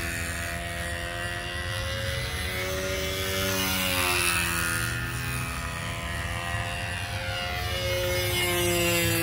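PA .65 two-stroke glow engine of a control-line Tempest 2 stunt model airplane running at steady flying speed, its pitch rising and falling in a slow cycle about every four to five seconds as the plane circles around the pilot.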